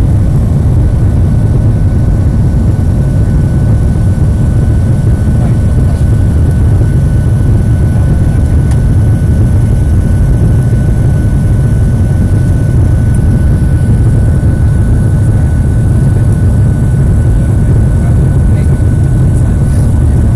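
Boeing 737-800's CFM56-7B turbofan engines at climb thrust just after takeoff, heard inside the cabin over the wing: a loud, steady deep rumble with a thin steady whine above it.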